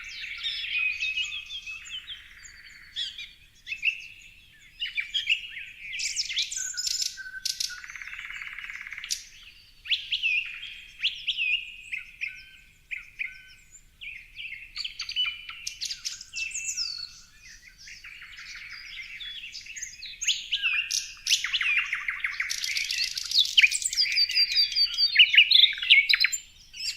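Several birds chirping and singing at once, a busy mix of quick high chirps, whistled glides and rapid trills, growing denser and louder in the last few seconds.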